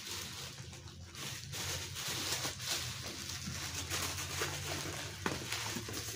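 Bubble wrap and plastic packaging rustling and crinkling as hands pull a statue out of its wrapping, with a low steady hum underneath.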